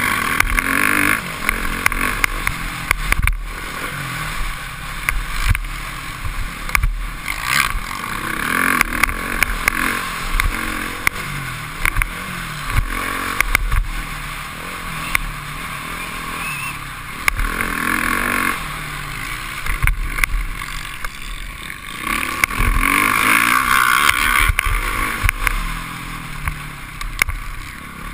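Motocross dirt bike engine racing, revving up and falling back again and again as the rider accelerates and shifts through the turns, heard from a helmet-mounted camera with wind rushing over the microphone. Sharp knocks from the bike hitting bumps in the track break in now and then.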